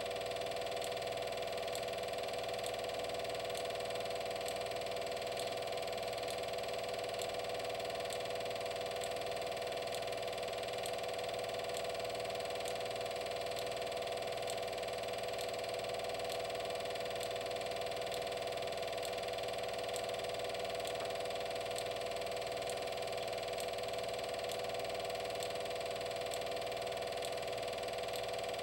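A steady motor hum with a faint regular ticking, unchanging in level.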